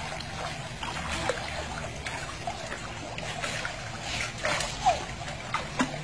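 Small splashes and trickling water from a baby kicking and paddling in a swimming pool, over a steady low hum. A few short, high, falling chirps stand out about five seconds in.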